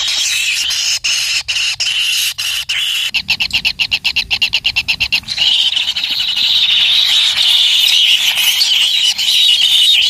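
Kingfisher nestlings begging for food: a constant high buzzy chorus that breaks into a rapid pulsing of about ten beats a second around three seconds in, then turns louder and steady from about five seconds on as food is brought.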